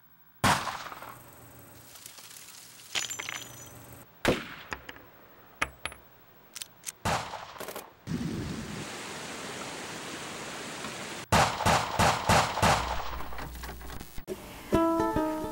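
Scattered single gunshots, then a quick string of about seven shots in under two seconds.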